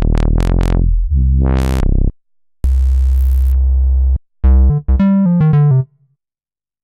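Korg Krome synthesizer workstation auditioning a run of different patches: a bass-heavy synth sound whose brightness sweeps up and down several times, a held bright chord, then a quick series of short notes. Each sound stops abruptly with a brief silence before the next.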